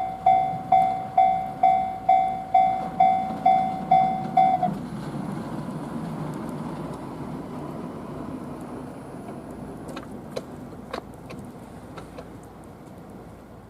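Japanese level-crossing warning bell ringing its electronic ding about three times a second, then stopping about four and a half seconds in. It had been ringing on with every train cancelled, which the uploader takes for a crossing fault. A low rumble follows and fades away, with a few faint clicks near the end.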